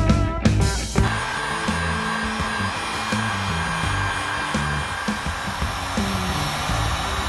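Handheld heat gun blowing hot air onto faded black plastic wheel-arch trim: a steady rushing hiss that comes in about a second in as the guitar music drops back. Bass notes from background music carry on underneath.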